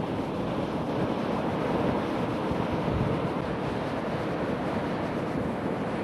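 Ocean surf breaking on a beach, a steady rushing wash of waves, with wind buffeting the microphone.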